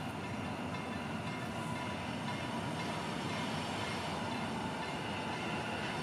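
Koleje Mazowieckie EN57AKM electric multiple unit approaching along the platform, a steady rail rumble with a faint steady whine, growing slightly louder as it nears.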